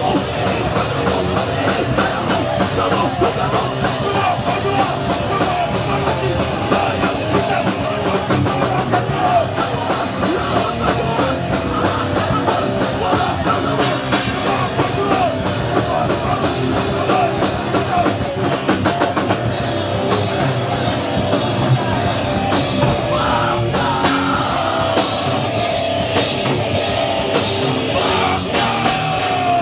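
Hardcore punk band playing live, with distorted electric guitars, bass and pounding drums at a loud, steady level.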